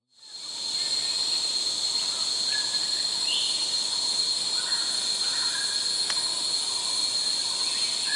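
Forest insects droning steadily on one high note, with a hiss of other insects above it. The sound fades in just after the start, and a few short, faint calls come and go through it.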